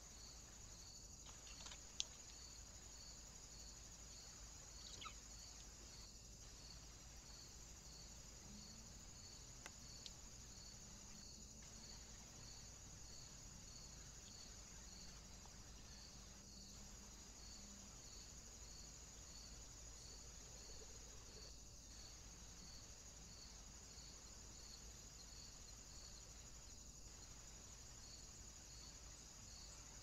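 Steady high-pitched insect chorus of crickets or similar insects, with a regular chirping pulse a little more than once a second. A sharp click about two seconds in, and fainter clicks around five and ten seconds.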